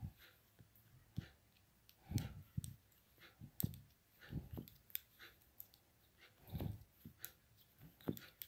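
Metal knitting needles clicking and tapping together at an irregular pace as stitches are worked, with faint soft thumps and rustle from handling the yarn and work.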